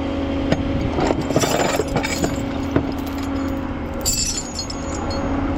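Metal clinking and rattling in short clusters, heaviest about a second in and again near four seconds, over the steady hum of an idling truck engine.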